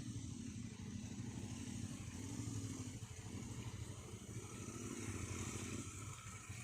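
Motorcycle engine running while riding, its note wavering a little up and down, with wind hiss.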